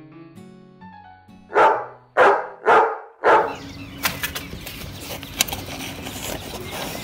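Dog barking four times, about half a second apart, right after soft piano-like music stops.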